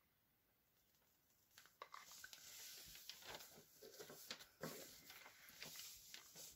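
Faint handling noise starting about a second and a half in: small craft pots being set down and picked up on a paper-covered surface, with light clicks and rustling.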